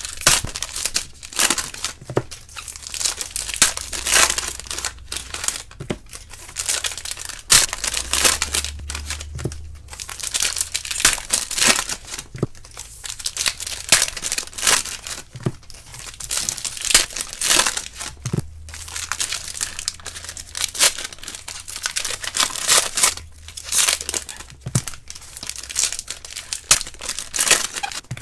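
Foil trading-card pack wrappers being torn open and crinkled by hand, a steady run of irregular crackling rips.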